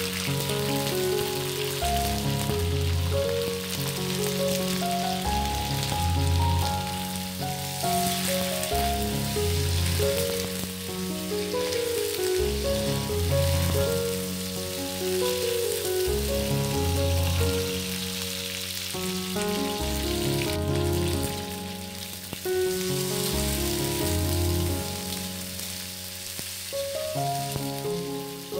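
Bok choy stems and minced garlic sizzling in hot oil in a wok as they are stir-fried with a metal spatula. A background music track with a melody and a repeating bass line plays throughout.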